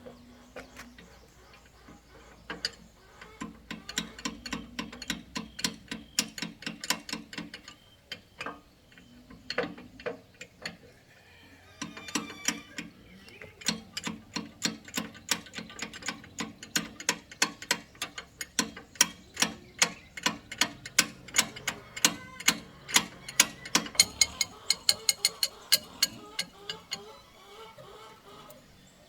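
Ratchet-like mechanical clicking, in runs of about three to four clicks a second broken by short pauses, growing louder in the second half.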